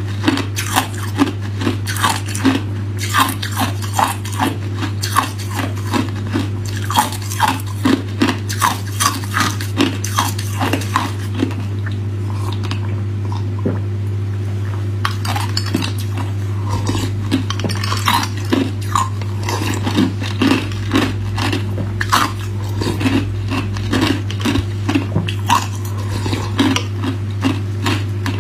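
Close-up crunching of hard ice being bitten and chewed, a quick run of sharp crunches at about two or three a second that thins out briefly around the middle while the cup is tipped to the mouth. A steady low hum runs underneath.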